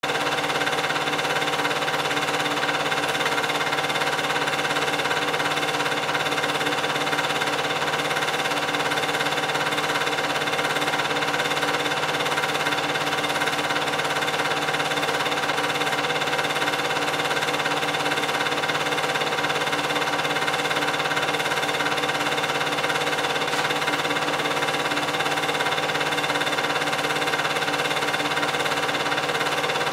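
8mm film projector running steadily, its motor and film transport making a constant mechanical hum with several steady tones. It is the only sound, picked up while the silent film is projected.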